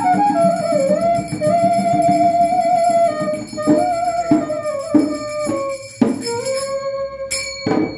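A bamboo transverse flute (bansuri) plays a slow folk melody, sliding between notes. From about halfway through, sharp percussion strikes come roughly every half second, and the flute closes on a long held note.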